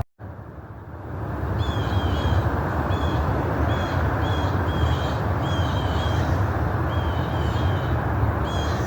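A bird calling over and over in short high chirps, starting about a second and a half in, over steady background noise. It opens with a brief moment of silence at a cut.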